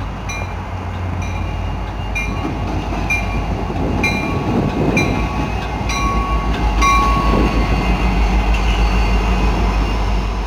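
Two Norfolk Southern six-axle diesel-electric locomotives passing close by without a train. Their engines rumble, louder as they draw alongside and fading near the end. Their wheels click over the rail joints about once a second, with a brief high squeal partway through.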